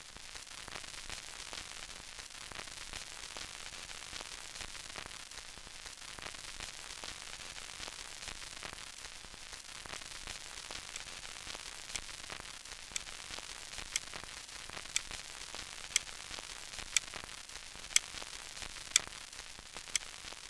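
Steady static hiss with fine crackle. About halfway through, sharp clicks begin, one each second.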